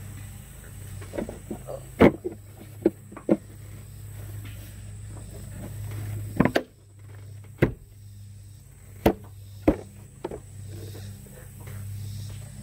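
Irregular sharp clicks and knocks of plastic engine-bay parts (air filter housing and cowl trim) being handled, about a dozen strikes, over a steady low hum.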